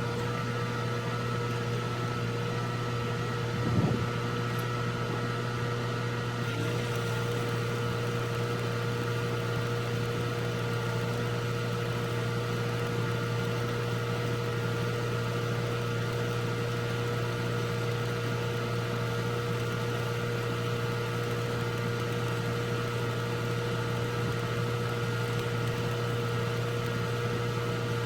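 Welding machine humming steadily, with an even hiss over the hum. One brief knock about four seconds in.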